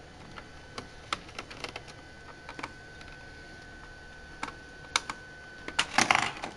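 Small scattered clicks of a Phillips screwdriver working the screws of an HP laptop's plastic bottom access cover. Near the end comes a louder burst of plastic clatter and scraping as the cover is worked loose.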